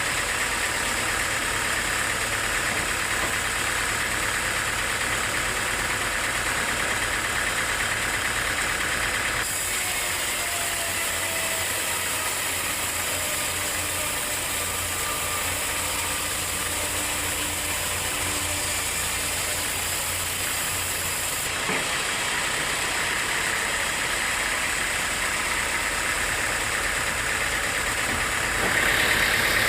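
Sawmill machinery running steadily: an engine hum under a constant hiss. The sound changes abruptly about a third of the way in and again about two-thirds through.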